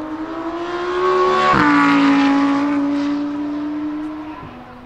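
Lamborghini Huracán EVO's naturally aspirated 5.2-litre V10 accelerating past at full song. Its note climbs, falls sharply about a second and a half in as the car goes by, then holds and steps down again as it fades away.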